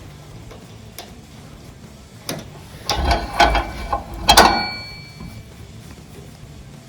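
Metal hand tools and engine parts clanking during disassembly of a tractor cylinder head: a few light clicks, then a quick run of louder metal knocks, the last one ringing briefly like a steel part set down.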